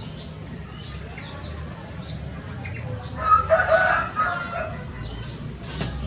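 A rooster crowing once, starting about three seconds in, over many short, high, falling chirps of small birds.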